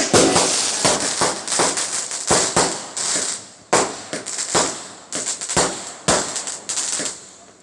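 Fireworks going off in a rapid, irregular string of sharp bangs and crackles, several a second, thinning out near the end.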